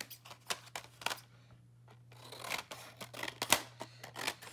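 Large craft shears (Tim Holtz) cutting through paper: a run of irregular sharp snips and blade clicks as the paper is trimmed.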